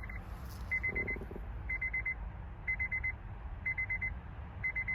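A 2008 Honda CR-V's dashboard warning chime beeping: quick groups of four high beeps, repeating about once a second.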